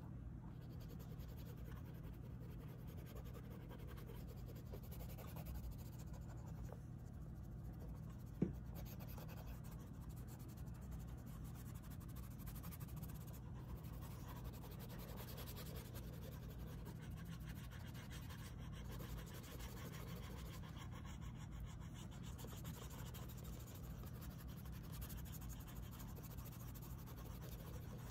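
Oil pastel sticks scratching and rubbing on sketchbook paper as colour is laid down and worked in, over a faint steady low hum. A single sharp click about eight seconds in.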